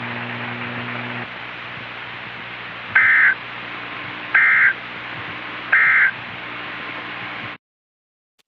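Three short bursts of EAS digital data tones, the end-of-message code that closes an Emergency Alert System broadcast, about 1.4 s apart over steady radio static. The static cuts off suddenly near the end.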